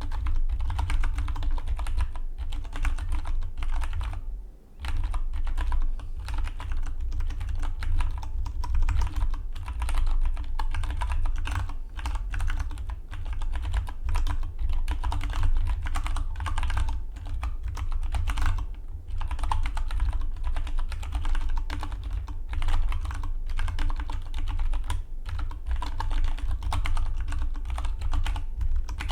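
Fast, continuous typing on a Dygma Defy split mechanical keyboard: a steady rapid clatter of key presses, broken by one short pause about four and a half seconds in.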